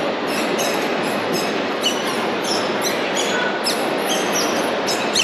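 A steady, dense rumbling noise with many short, high squeaks and clicks over it, a few a second, some sliding in pitch.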